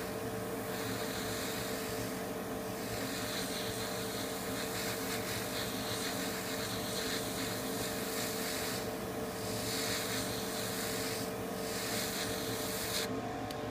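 Airbrush blowing air only, with no paint, over a freshly painted plastic part to dry it: a steady hiss of air with a few brief dips that cuts off near the end. A steady motor hum runs underneath.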